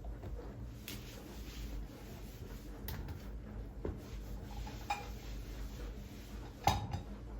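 Scattered light clinks and knocks of household objects being handled, about one a second, the loudest near the end, over a low steady rumble.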